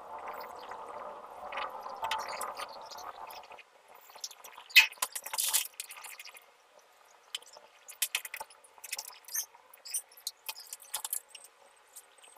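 Scattered clicks, taps and scrapes of hands handling PVC drain pipe pieces and small items on a stepladder, the loudest a sharp click about five seconds in. A steady background noise stops abruptly about three and a half seconds in.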